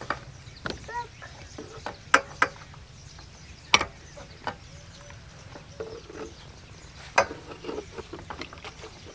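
Sharp clinks and knocks of metal on metal as a petrol engine pump set is fitted together by hand: four loud strikes scattered among quieter taps and rattles. The engine is not running.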